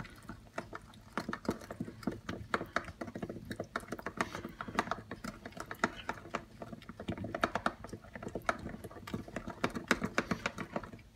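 Metal spoon stirring a sauce in a small clear cup, clinking and scraping against the sides in quick, uneven clicks.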